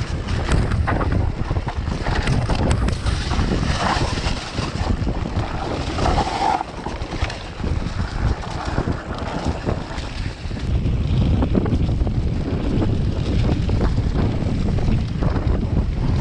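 Wind buffeting the microphone over the rumble and rattle of a mountain bike riding a rough mountain trail.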